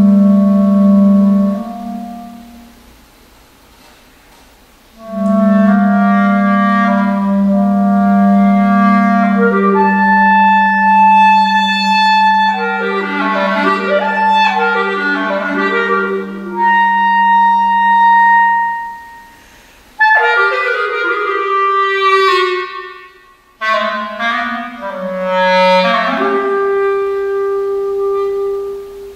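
A clarinet plays long held notes and quicker figures over a sustained low electronic tone. The music pauses about two seconds in, comes back about three seconds later, and breaks off briefly twice in the second half.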